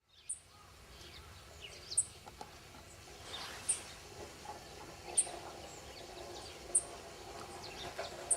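A bird repeating a short, high chirp about every second and a half, with other birds calling faintly, over steady outdoor background noise.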